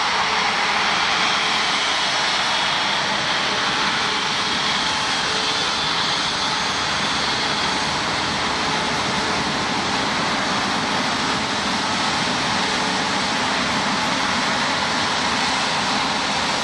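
Jet airliner engines running steadily, a loud even rushing noise, with a faint high whine that fades out about halfway through.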